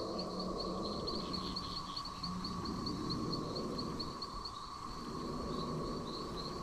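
Insects chirping steadily: a high, rapid chirp repeating several times a second over a lower, steady drone.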